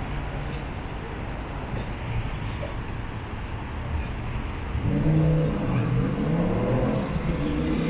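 Road traffic noise. A motor vehicle's engine grows louder about five seconds in, its pitch shifting as it runs.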